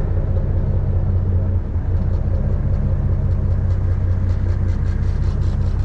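Boat engine running steadily: a loud, even low drone with no change in speed.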